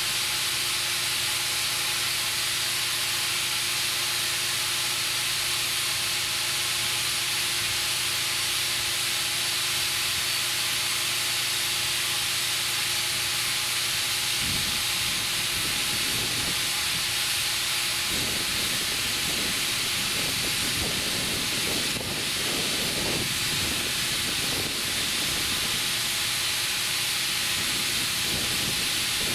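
Steady hiss of compressed air filling a large 20.8R38 tractor inner tube as it inflates. A low, uneven rumble comes and goes underneath in the second half.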